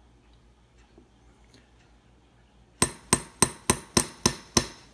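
Seven quick, sharp taps of a small hammer on a watchmaker's staking tool, a bit over three a second, pressing the roller table down onto the new balance staff of a Waltham pocket watch until it seats.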